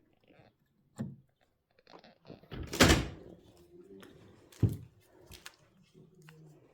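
Old wooden door being handled, giving a few separate knocks and thuds. The loudest comes about three seconds in, with another sharp knock about a second and a half later.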